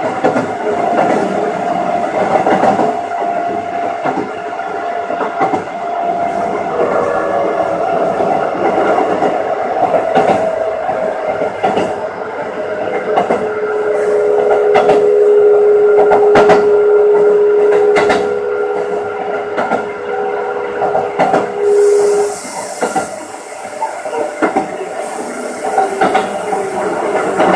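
Keikyu 600 series electric train running, with its drive's mechanical tones and irregular clicks of the wheels over rail joints. About halfway through, a steady whine sets in and cuts off about two-thirds of the way through.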